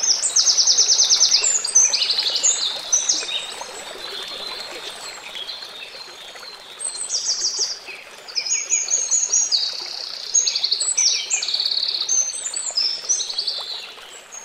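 Many small birds chirping and trilling in rapid, overlapping bursts, busiest in the first two seconds and again from about seven seconds in, over a steady rush of running water.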